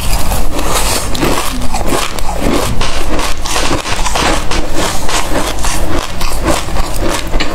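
Close-up chewing of a mouthful of black seeds: a dense run of crunching and crackling clicks in the mouth.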